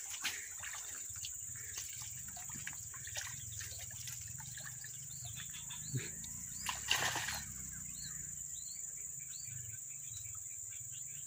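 Water sloshing and splashing around a man wading waist-deep through a swampy pond, with the loudest splash about seven seconds in. Behind it runs a steady high insect drone with scattered bird chirps.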